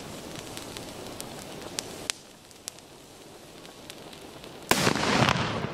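Chiarappa Pitbull firecracker (banger): its lit fuse hisses and sputters with small crackles, then near the end it goes off with a single loud bang that rings on for about a second.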